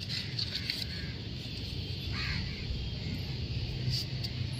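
Faint crow caws about two seconds in, over a steady low hum.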